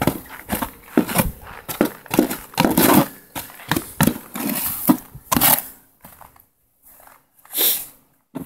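Blue plastic snow shovel scraping and digging into deep snow on steps, a quick run of crunching scrapes that thins out after about five seconds, with one more scrape near the end.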